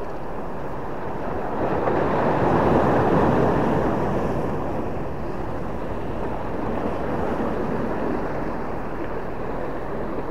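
Rushing of sea waves against a rock breakwater, mixed with wind on the microphone. It swells louder about two seconds in and eases off again after about four seconds.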